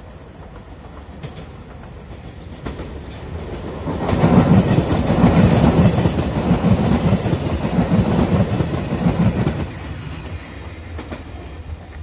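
JR Shikoku 2700 series diesel limited express train approaching and passing close by, its wheels clacking rhythmically over rail joints. The sound builds about three seconds in, is loudest for about five seconds, then falls away.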